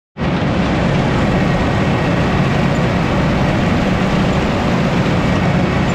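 John Deere 4400 diesel combine running steadily under way, a loud, even machine noise with a low-pitched engine drone.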